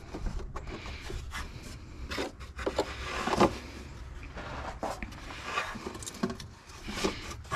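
Hands rubbing and scraping inside a plastic air filter housing while picking out debris: irregular rustles and small clicks, with a louder scrape about three and a half seconds in.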